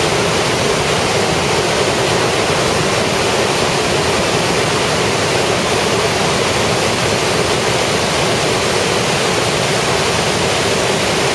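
River water rushing through white-water rapids under a stone arch bridge, a loud steady rush of noise with no breaks.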